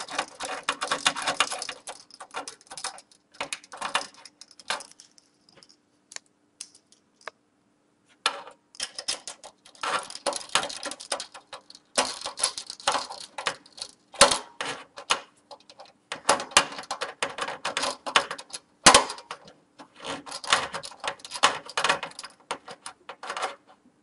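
A screwdriver driving screws through a graphics card's metal bracket into a computer case: rapid, irregular metallic clicking and scraping in spells, pausing for a few seconds about a quarter of the way in. A faint steady hum runs underneath.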